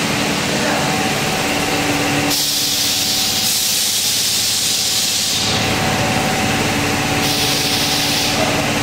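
Air hissing steadily over a low machine hum with a faint steady tone. The hiss grows stronger and sharper about two seconds in, lasting some three seconds, then swells again briefly near the end.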